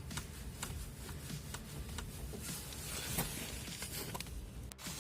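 Light scattered clicks and taps from hands and tools working on a car's front suspension, over a low steady background rumble.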